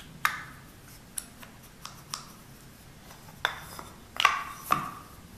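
Plywood parts of a homemade one-way dog clutch clicking and knocking together as they are handled and fitted together: a handful of short, sharp clicks at irregular intervals, the loudest two about four seconds in.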